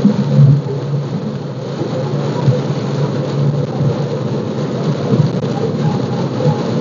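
Heavy rain beating on a car's roof and windshield, heard from inside the cabin: a loud, dense, steady patter.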